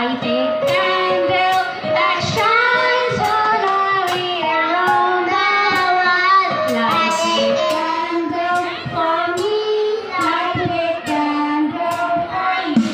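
A group of young children singing a song together into stage microphones, amplified through the PA loudspeakers, over a steady beat of sharp taps.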